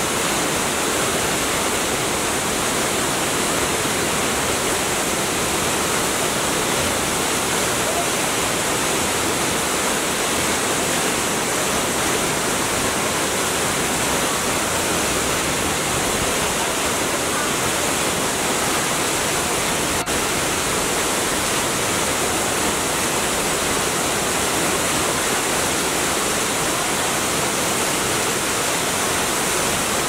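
Waterfall pouring down a rock cliff: a steady, even rush of falling water.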